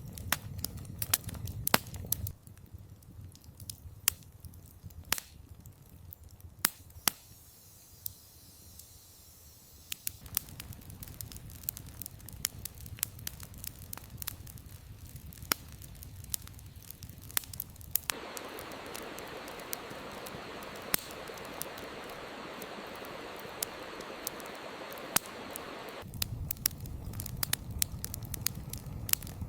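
Wood campfire crackling, with sharp pops of burning logs scattered throughout. For about eight seconds in the second half a steady hiss joins the crackle.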